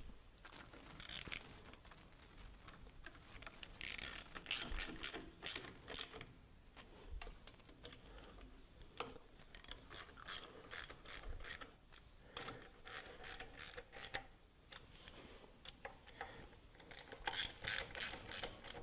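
Ratchet wrench clicking in several runs of quick strokes, with short pauses between, as the bolts of a water pump are snugged up evenly around the pump.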